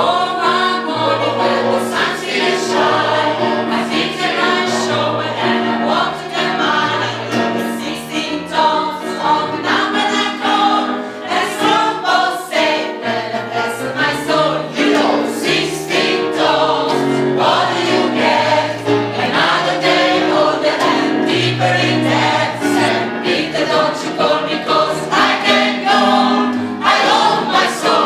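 Gospel choir singing in full voice, with sustained low notes moving beneath the upper parts.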